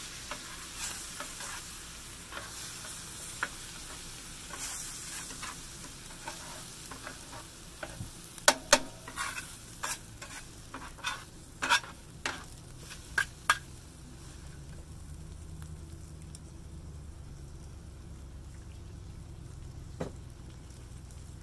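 Yakisoba noodles frying in garlic sesame sauce on a Blackstone flat-top griddle, sizzling as they are stirred and scraped with two metal bench scrapers. Between about 8 and 14 seconds in, the scrapers clack sharply against the steel griddle several times. After that the sizzle quietens.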